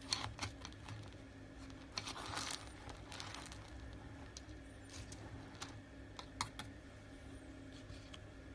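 A scoop digging into dry tofu cat litter pellets: the pellets click and rattle against it, with a longer rustling scrape about two seconds in and a few more clicks later on.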